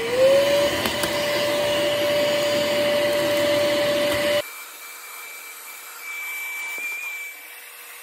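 Cordless handheld vacuum running on its second, higher power setting. Its motor pitch rises as it speeds up right at the start, then holds steady. It switches off abruptly about four and a half seconds in, leaving only a faint steady hum.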